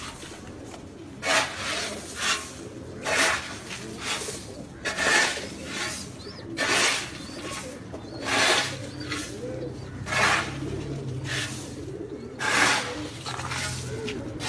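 Domestic pigeons cooing in a loft, with a short rasping rub repeating about once a second, the loudest sound.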